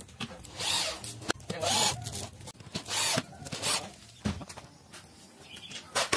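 Handheld corded electric drill drilling into a plywood frame in short bursts: four brief spins of under half a second each over about three seconds. A sharp knock follows about four seconds in, and another near the end.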